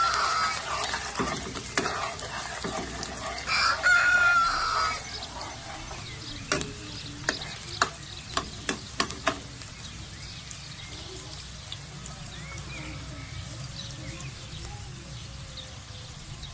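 Garlic sautéing in hot oil with a steady sizzle, and a spatula knocking against the pan about six times near the middle. A rooster crows twice, louder than the cooking: one crow trails off at the very start and another comes about four seconds in.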